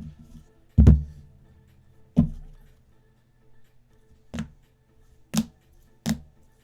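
A handful of sharp taps and knocks, as of objects set down on a tabletop, spaced irregularly; the loudest comes about a second in. Faint background music runs underneath.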